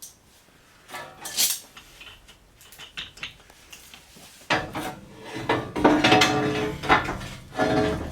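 Metal parts clanking and clattering together, a few knocks at first, then a busy run of ringing clanks from about halfway through.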